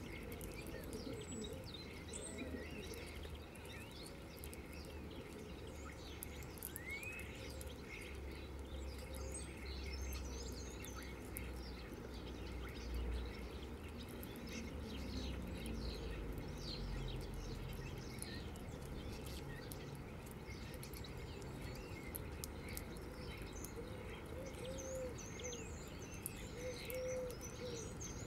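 Small songbirds of a mixed feeding flock (European greenfinches, tree sparrows, a common starling) chirping and twittering: many short high calls scattered throughout, over a steady low background rumble.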